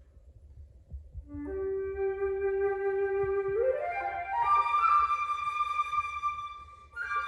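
Solo flute playing. After a short rest, a held low note leads into a quick rising run that ends on a long high note; playing stops briefly and then resumes near the end.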